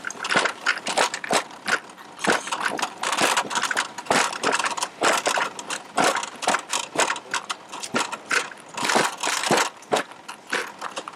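Continuous irregular clattering and rattling: a quick, uneven run of sharp clicks and knocks.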